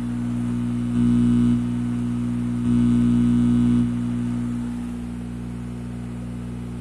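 Music through a Sony MHC-GTR55 mini hi-fi, with two louder held low chords, over a steady low buzzing hum from the system. The hum is the noise fault the owner is asking about.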